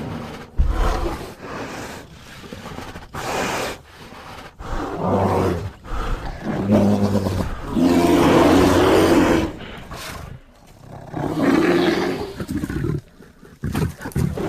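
Bear growls and roars: a series of separate calls, each a second or two long, with short gaps between them.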